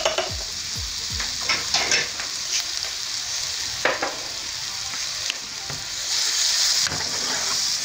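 Chopped onion and a spoonful of ground garlic sizzling in hot oil in a frying pan, with a couple of short clicks; the sizzle grows louder about six seconds in.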